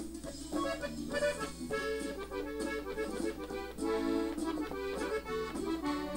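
Gabbanelli diatonic button accordion, tuned in E, played on the treble buttons: a phrase of short, quick melody notes forming an ornamental run.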